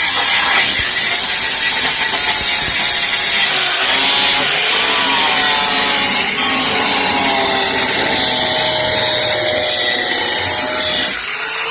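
Handheld power tool working on rusted vehicle sheet metal, running loud and steady with a whine that drifts up and down in pitch as the load changes, easing briefly about eleven seconds in.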